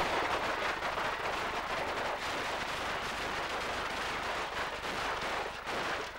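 A string of firecrackers (a traca) going off in a rapid, continuous crackle of bangs, starting with a loud crack.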